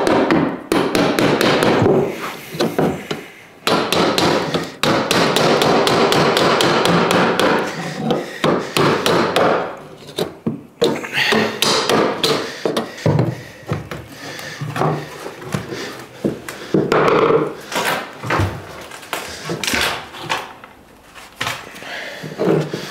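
Hammer blows on old timber floorboards as they are prised up: a quick, dense run of strikes for about the first half, then slower, scattered knocks of wood on wood.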